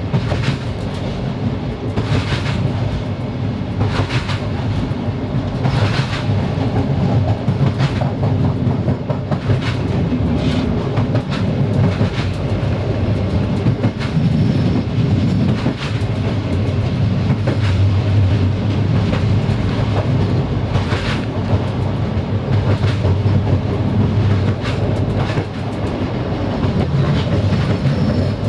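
Passenger train running along the track: a steady low rumble, with the wheels clicking over rail joints every couple of seconds.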